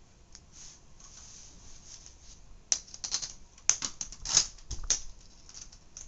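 Hands handling a floppy drive and a small screwdriver: faint rustling, then about three seconds in a quick cluster of sharp clicks and short scrapes that lasts about two seconds.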